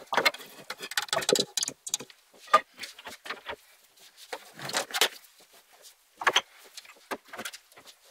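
Irregular clinks, knocks and short rustles of household objects being picked up and set down during tidying, with a few louder clatters.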